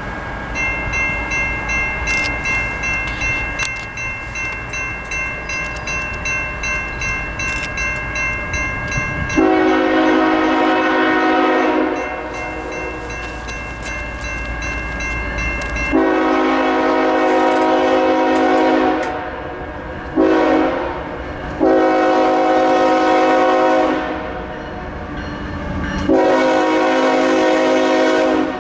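Grade-crossing signal's Safetran Type 2 electronic bell starts up and rings in a steady, even dinging. From about nine seconds in, the approaching freight train's lead GE ES44AH locomotive sounds its horn in a series of long blasts with one short one, the crossing warning.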